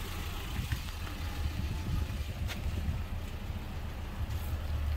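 Truck engine idling: a steady low rumble, with a single light click about two and a half seconds in.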